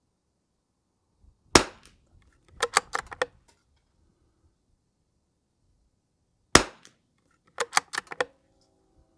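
Two .22 LR rifle shots about five seconds apart from a Lithgow LA101 bolt-action rifle firing Lapua Midas Plus match ammunition. About a second after each shot comes a quick run of four or five metallic clicks as the bolt is worked to chamber the next round.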